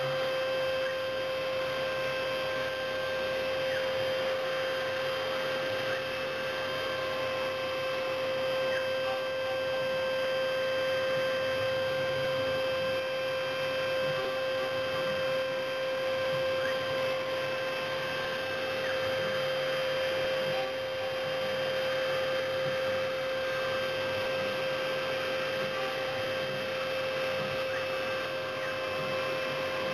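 CNC milling machine spindle running steadily with a high, even whine while milling block material.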